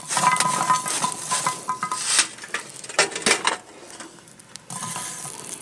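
Lit charcoal briquettes poured from a metal chimney starter onto the cast-iron lid of a 14-inch Dutch oven, clattering in a rapid run of clinks and knocks with a metallic ring. The clatter eases off about three and a half seconds in, and a few lighter clinks follow near the end.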